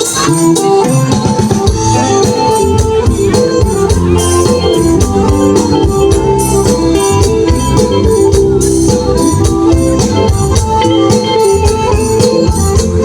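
Khmer romvong dance music: an electronic organ-like melody of held notes over a steady beat with tambourine or shaker.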